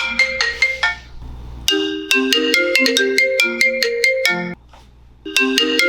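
A marimba-style melody of quick struck notes, played in short repeating phrases with brief pauses between them.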